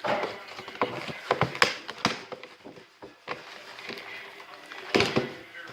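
Cardboard and plastic toy packaging being handled and opened by hand: a string of crackles and sharp clicks, loudest near the start and about five seconds in.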